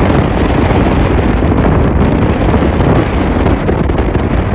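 Loud, steady wind buffeting the microphone on an open boat.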